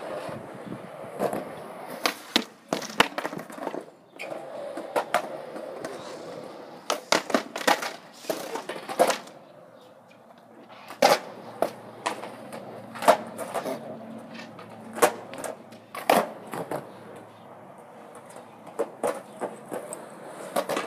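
Skateboards rolling on concrete, their wheels making a steady rumble, broken by many sharp clacks of boards hitting the ground.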